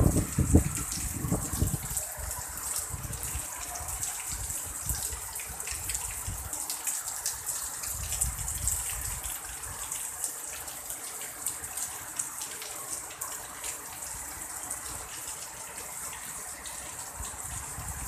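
Heavy rain pouring steadily, a dense hiss of drops, with irregular low rumbles of strong wind gusting over the microphone, loudest in the first two seconds.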